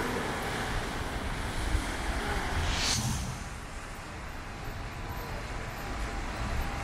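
Steady hiss of heavy rain on a city street, mixed with passing traffic on the wet road. There is a brief sharp hiss about three seconds in, and after it the noise eases a little.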